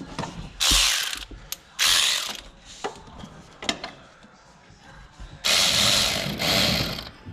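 Ratchet clicking in three runs as a hose clamp on a coolant hose is tightened, with a few single sharp clicks between.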